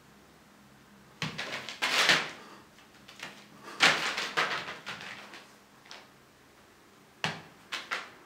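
Plastic tarp crinkling and crackling under a cat's paws as it runs and pounces on it, in three bursts with quiet gaps between.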